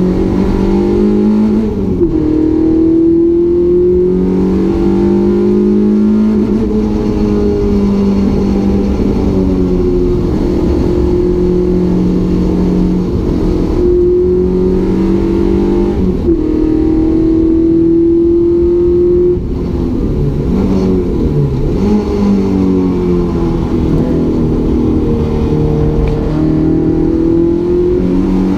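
Renault Clio 172 race car's 2.0-litre four-cylinder engine heard from inside the cabin, pulling hard on track. The newly fitted engine is limited to 6000 rpm to protect it. Its note climbs steadily, then drops suddenly several times at gear changes; about two-thirds of the way through it falls lower and wavers as the car slows, then builds again.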